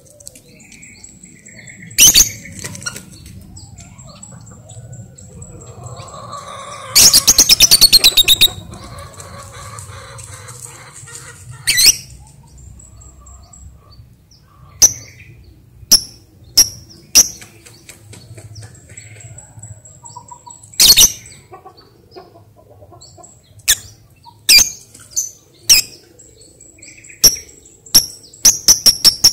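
Lovebird giving loud, sharp, shrill single calls at irregular intervals, a few seconds apart and closer together near the end, with one fast chattering run lasting about a second and a half about seven seconds in.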